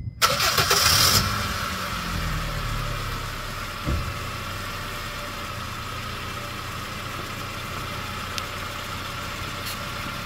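A Honda Fit's four-cylinder petrol engine starting: the starter cranks for about a second and the engine catches, then runs with its revs settling lower over the next few seconds into a steady idle. There is a single knock about four seconds in.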